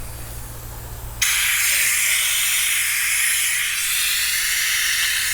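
A steady hiss of air starts suddenly about a second in, from the siphon pump set up to draw the oil out of the Honda GX390 engine's crankcase.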